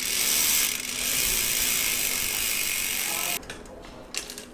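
Mountain bike rear hub's freewheel ratcheting in a fast, steady buzz as the wheel spins, cutting off sharply about three seconds in. A few light clicks follow.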